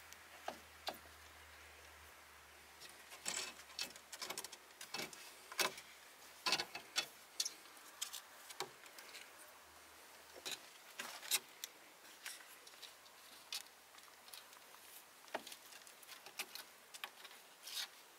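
Kittens' claws scratching and clicking on an old wooden window frame and its glass pane as they climb and paw at it. The sound is a run of irregular sharp clicks and scrapes, thickest from about three seconds in.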